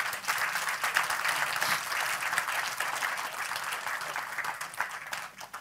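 Audience applauding: many people clapping in a dense, steady patter that thins out and fades near the end.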